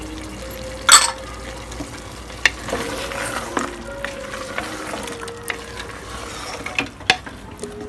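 A wooden spatula stirs meat, potatoes, cluster beans and fresh greens in an aluminium pressure cooker, scraping and sharply knocking against the pot. The loudest knock comes about a second in, with others near the middle and near the end. Under it the hot contents sizzle lightly.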